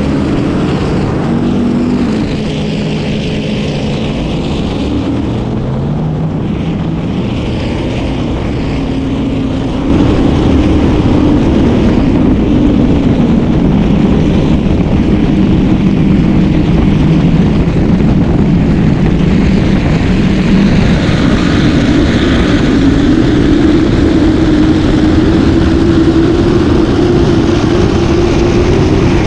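Offshore racing boat's naturally aspirated V16 engines running hard at speed, with wind and water rushing past. The engine pitch climbs over the first few seconds. About ten seconds in the sound gets louder and holds steady at high revs.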